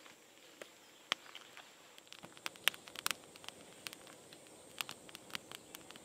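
Irregular small sharp clicks and taps from wooden sticks and a twine-tied stick hook being handled as a tomahawk steak's bone is hung on it. The clicks are thicker in the second half.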